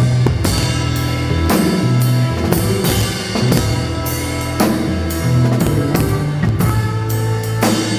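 Live band playing: drum kit hits on kick and snare over held bass notes and other pitched instruments.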